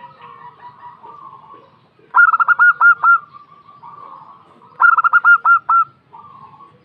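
Female zebra dove (perkutut) calling: two loud phrases of about six quick coo notes each, roughly two and a half seconds apart, with softer, lower cooing between them.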